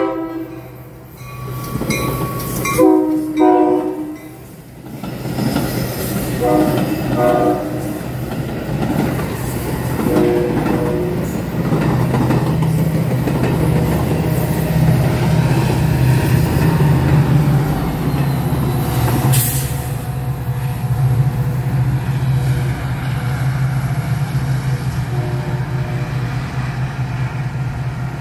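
Metra commuter train's diesel locomotive horn sounding two long, loud chords, then a few shorter, fainter notes. The train then passes with a steady low engine drone and wheel-on-rail noise, and a single sharp clank about two-thirds of the way through.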